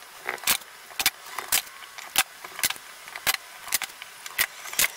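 Light sharp clicks and taps of hand marking tools, a brad awl and vernier caliper points, being pressed into and set against a timber rail, about two a second, while dowel hole positions are pricked out.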